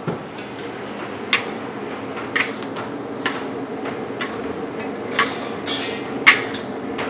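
Metal spatula clanking and scraping against a large wok while hard vegetables are stir-fried. There is a sharp knock about once a second, over a steady low rushing noise.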